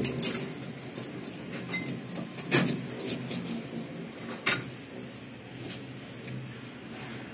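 Hammer striking a steel chisel to chip cement plaster from a concrete wall: a few sharp, separate knocks, a second or two apart, the last about four and a half seconds in.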